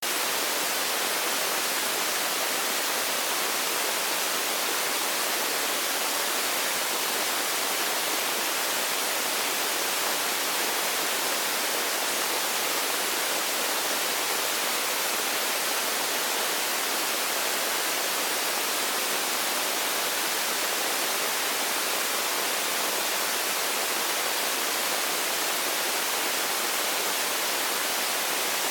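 Steady, even hiss of static noise, bright, with very little bass and no change in level.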